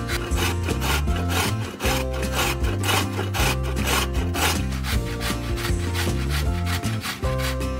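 Repeated rasping strokes, about three a second, as of food being grated or sawn on a wooden surface, over background music.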